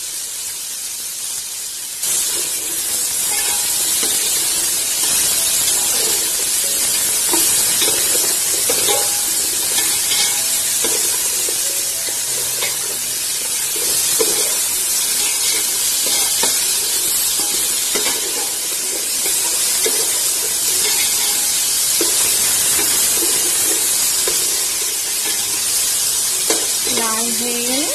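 Diced potatoes frying in mustard oil in a metal pot: a steady sizzle that gets louder about two seconds in, with a spatula scraping and stirring them against the pot.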